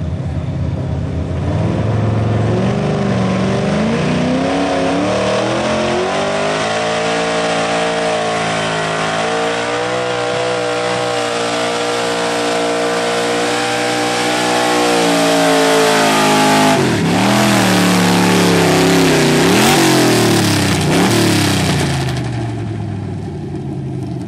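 Pickup truck engine at full throttle pulling a weight-transfer sled. The revs climb over the first couple of seconds and hold high and steady. Near the end they surge up and down several times, then ease off.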